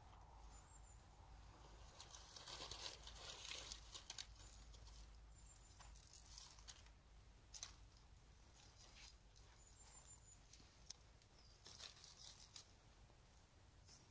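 Faint crinkling and rustling of dry bark and twigs being handled and laid as fire tinder, in short scratchy bursts that are heaviest a few seconds in and again near the end.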